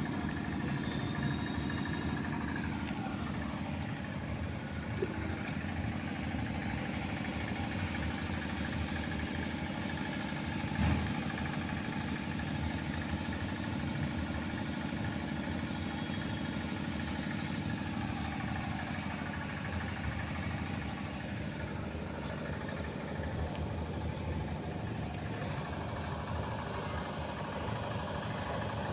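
A motor vehicle engine idling steadily, with one short knock about eleven seconds in.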